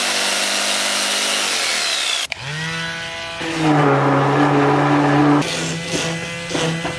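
Corded jigsaw sawing through wooden decking boards with a steady buzzing noise that stops abruptly about two seconds in. Then another small handheld power tool spins up with a rising whine and runs at a steady hum, louder for a couple of seconds as it works the wood.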